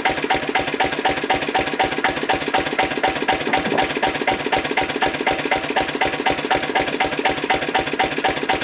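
Lister CS single-cylinder diesel engine running steadily at idle, its slow firing strokes making an even, regular beat several times a second.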